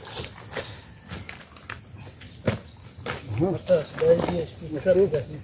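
Steady high-pitched insect chorus, with a few sharp knocks early on and distant voices talking in the second half.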